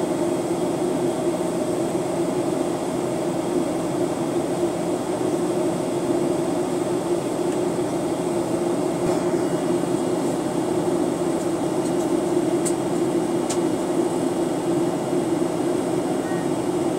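Steady cabin drone of a Boeing 737-900ER in flight, heard inside the cabin by the window over the wing: the CFM56-7B turbofan engines and rushing airflow make a continuous, even hum. Two faint clicks come about a second apart near the end.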